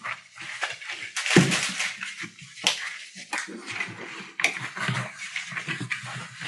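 Four-week-old collie puppies play-fighting and scrambling about: a busy, irregular run of quick scratches, scuffs and thumps from their paws and claws, with a few louder knocks.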